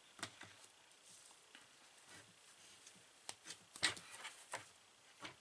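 Scattered small clicks and knocks of a camera microphone being handled and fitted onto a shoe mount, with a cluster of sharper taps a little past the middle.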